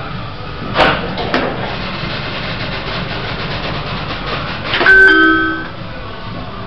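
Two sharp clunks from the lift about a second in, then a bump and a short electronic lift chime about five seconds in, over the steady hum of the lift.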